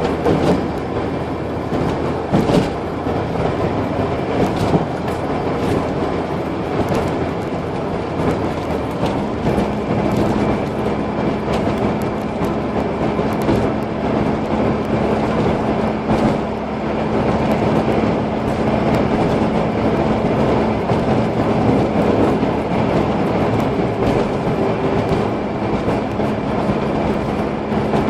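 Car engine and road noise heard inside the cabin while driving. A steady engine hum sets in about a third of the way through and holds as the car cruises.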